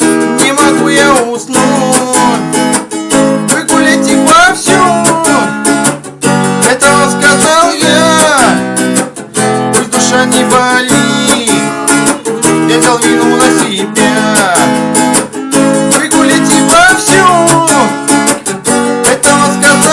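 Instrumental break of a song: strummed acoustic guitar with a melody line of sliding notes over it.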